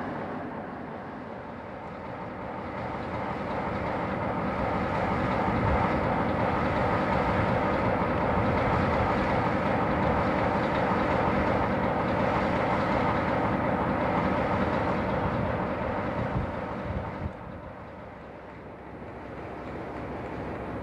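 British Rail diesel locomotive engine running. It grows louder over the first few seconds, holds steady, then drops away about 17 seconds in.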